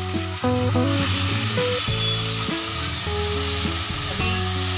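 Raw chicken pieces sizzling in hot oil in an aluminium pan with onion, tomato and curry leaves, the hiss of the frying growing stronger about a second in. Background music with a melody and a steady bass plays over it.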